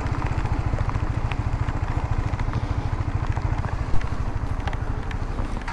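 Motorcycle engine running at low revs, a rapid, even low putter that eases off slightly toward the end. A single sharp click comes about four seconds in.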